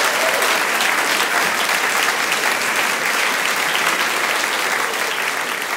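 Audience applauding, a steady dense clapping that begins to ease off near the end.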